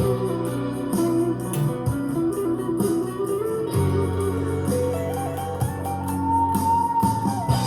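Guitar playing blues: low bass notes under a melody line that steps upward and ends on a long held note near the end.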